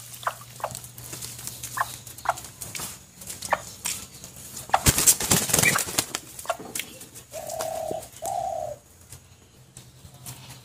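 A wet hen giving a few short calls, then two drawn-out low notes in a row about three quarters of the way in, among scattered knocks and rustles as she is handled.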